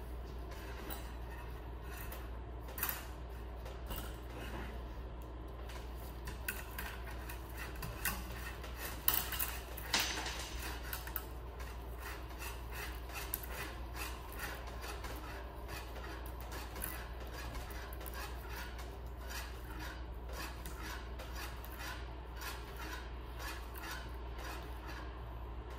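Armature wire being handled and twisted by hand: irregular light clicks and rubbing of metal wire, with a few sharper clinks about eight to ten seconds in, over a low steady hum.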